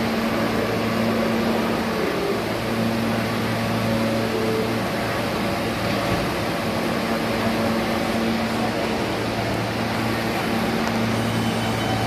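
New York City subway train standing at an elevated platform, its onboard equipment giving a steady low electrical hum over a constant mechanical rush.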